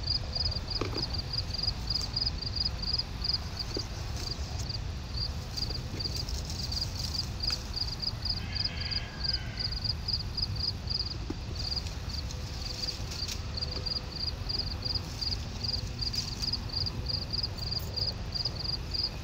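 Insects chirping in a fast, even, high-pitched pulse throughout, over a low wind rumble on the microphone, with a few soft rustles and snaps as tomato plants are handled.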